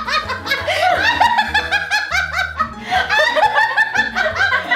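Women laughing hard and almost without a break during tickling, in rapid ha-ha pulses, over background music with a steady bass line.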